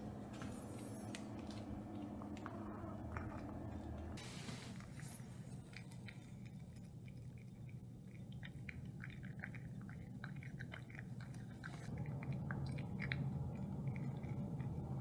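A cat eating, with rapid irregular crunching and chewing that picks up about five seconds in, over a low hum during the first few seconds.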